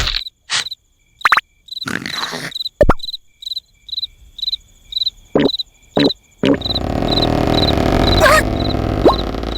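An insect chirping in a steady rhythm, about two short high chirps a second. In the first part several short loud sounds and abrupt silences break in. After about six and a half seconds a steady, louder rumbling noise joins in under the chirps.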